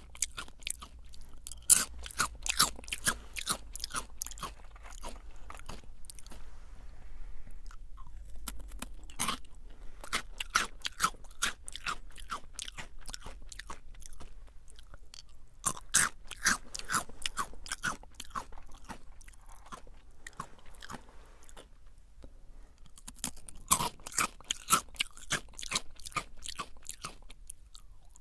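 Close-miked chewing of Jagariko crunchy potato sticks: runs of sharp, rapid crunches with quieter pauses between mouthfuls.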